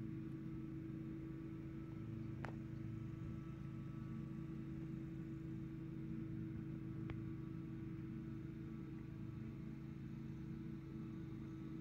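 Lawnmower engines running, a steady hum with no change, broken by two faint clicks, about two and a half and seven seconds in.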